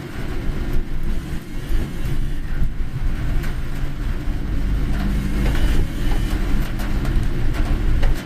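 Car driving on a rain-soaked road, heard from inside the cabin: a steady low rumble of engine and tyres, with scattered sharp ticks, most of them in the second half.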